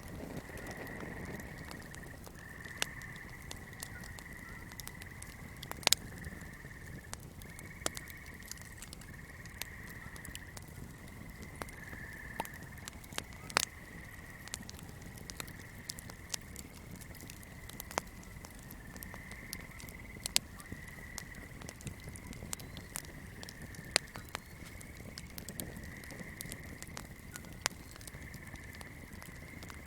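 A steady swamp chorus, a high pulsing trill held at one pitch, with irregular sharp crackles and pops from a burning candle.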